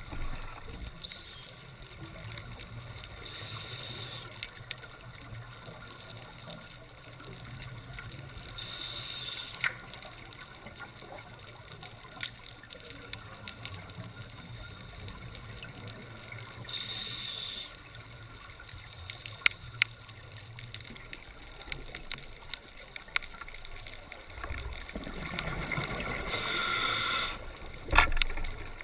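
Underwater ambience heard through a camera housing: a steady low hum and hiss with scattered sharp clicks. Near the end comes a louder bubbling rush, then a sharp knock.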